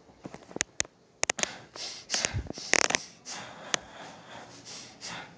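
Handling noise from a handheld camera rubbing and knocking against fabric: a quick run of sharp clicks, a louder scrape around the middle, one more click, then soft rustling.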